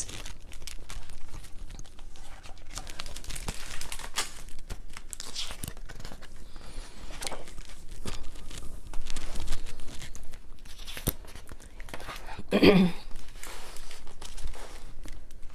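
Pages of a hardcover picture book being handled and turned, with irregular paper rustling, crinkling and light clicks of the pages and cover. A brief vocal sound comes about three-quarters of the way through.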